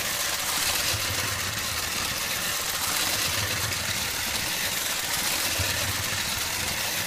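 LEGO 12-volt train motor running fast, below full throttle, as the 1976 LEGO 726 Western Train laps a blue plastic track: a steady whir with the wheels rattling over the rails.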